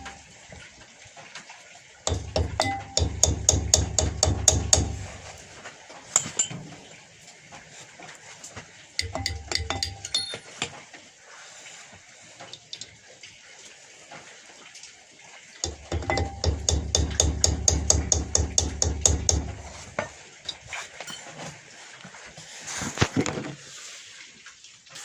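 Wrench work on a car's rear drum brake guide bolts: three bursts of rapid metallic clicking and tapping, each lasting a few seconds, with quieter gaps between them.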